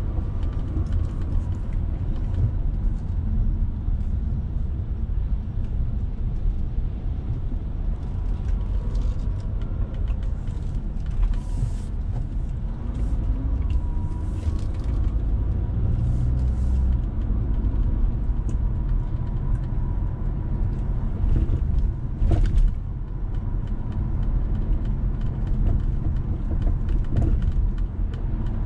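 A car driving in city traffic, heard from inside the cabin: a steady low rumble of engine and tyres on the road. In the first few seconds the engine note rises a couple of times as the car speeds up, and short hissing sounds from passing traffic come and go.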